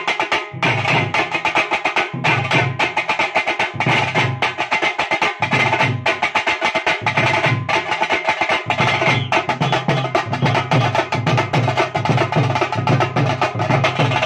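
Fast, dense street drumming: rapid stick strokes on a small drum over repeated deep beats of a Nasik dhol, with no break.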